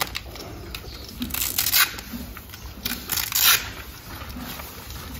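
Hook-and-loop straps on new Equilibrium Tri-Zone cross-country horse boots being pulled open to free them from their card packaging: a few short rasping rips, the two longest about a second in and about three seconds in.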